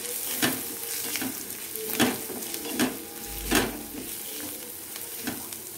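Shredded cabbage and spices stir-frying in a steel kadhai: a steady sizzle, with a wooden spatula scraping across the pan and tossing the vegetables in regular strokes, a little more than one a second.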